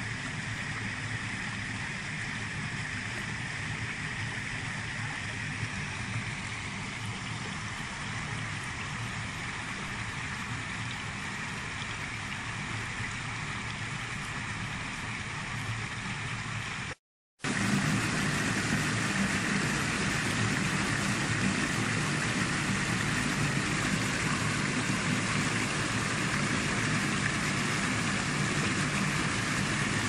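Water rushing steadily over a concrete weir, an even roar of falling and churning water. It cuts out to silence for a moment about 17 seconds in, then comes back louder.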